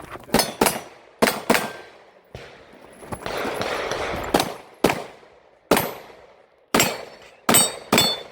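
About ten pistol shots fired in quick pairs and singles, a few followed by a short metallic ring. A rushing noise fills a gap of about a second in the middle.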